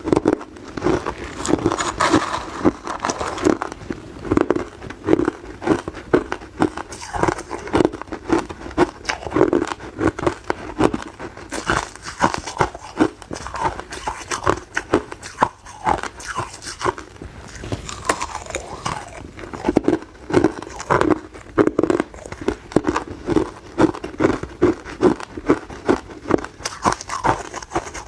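Close-up crunching of hard ice being bitten and chewed: a rapid, continuous run of sharp cracks and crunches.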